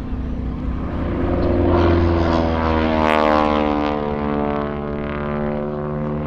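Propeller biplane's piston engine passing by in a display, its engine note building to its loudest a few seconds in, then dropping in pitch as it goes away.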